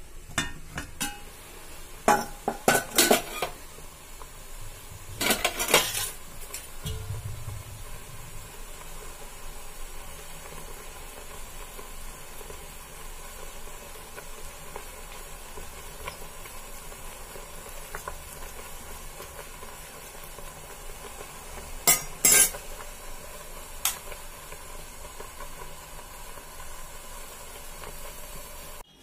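Steel spoon and rice-cooker lid clinking and scraping against a steel bowl: a cluster of clinks about two to three seconds in, another around six seconds, and a pair late on, over a steady low hiss.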